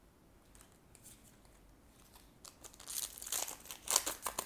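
Foil trading-card booster pack being torn open and crinkled by hand. The first half holds only faint rustles, then a dense run of crackling rips and crinkles starts about halfway through, loudest near the end.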